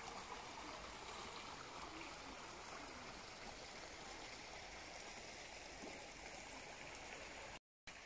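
Shallow forest stream running over rocks: a faint, steady rush of water. The sound cuts out completely for a split second near the end.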